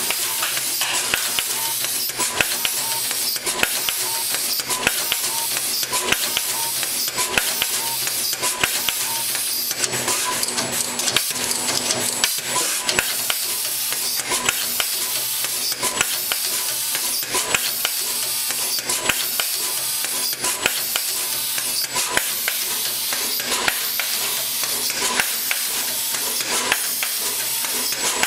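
SMT electronics-assembly machine running: a steady pneumatic-style hiss with dense mechanical clicking and ticking throughout.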